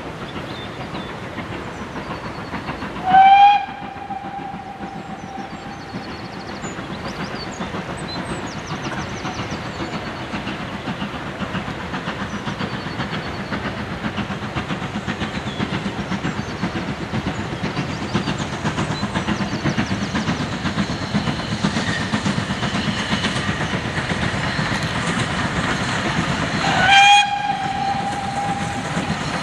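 Steam locomotive whistle giving a short blast about three seconds in and another near the end. Between them, a steam-hauled passenger train is heard approaching: the locomotive's working exhaust and the train's running grow steadily louder.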